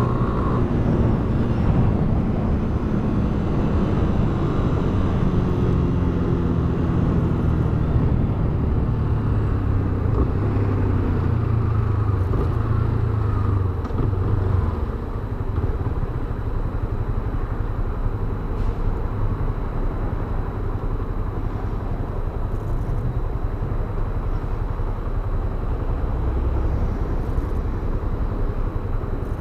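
Yamaha Fazer 250 BlueFlex motorcycle's single-cylinder engine running on the move, with wind and road noise. The engine note falls over the first half as the bike slows, then settles into a steadier, slightly quieter rumble.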